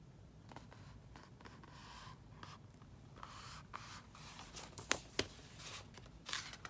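Paper rustling as a picture book is handled and a page is turned, with two sharp taps about five seconds in.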